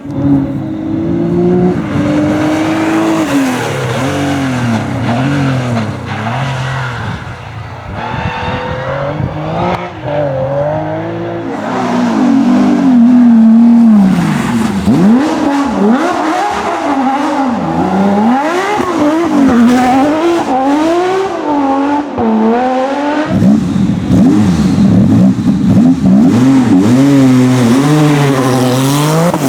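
Porsche race car engines revving hard, with the pitch climbing through the gears and dropping with quick throttle blips on downshifts, over and over. The sound changes abruptly a few times as a different car takes over.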